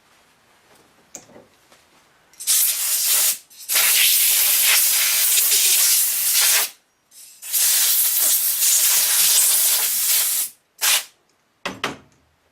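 Pressurised spray hissing in five bursts: a short one, two long ones of about three seconds each, then two brief puffs near the end.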